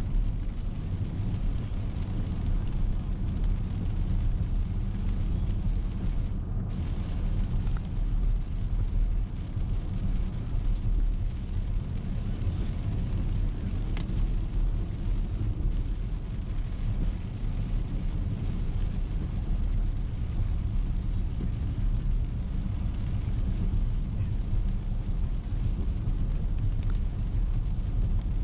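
Steady low road and engine noise heard inside the cabin of a car driving on a wet road.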